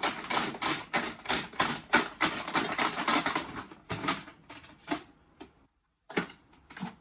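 Small hard numbered pieces clacking and rattling in a container being shaken, with about three to four sharp clacks a second. The rattling stops, then a few more clacks come near the end.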